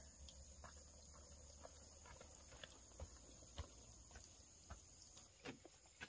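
Near silence: faint, irregular taps and clicks, a few a little louder about halfway through and near the end, over a steady high-pitched hum.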